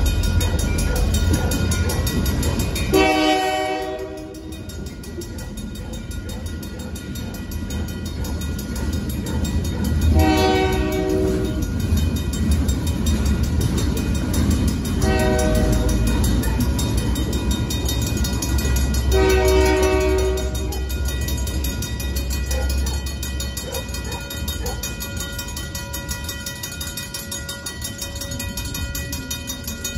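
Griswold mechanical crossing bells ringing steadily with fast, even strokes while a freight train's cars rumble past. A train horn sounds four times, the third blast short. The train's rumble fades away in the last few seconds as the end of the train clears the crossing.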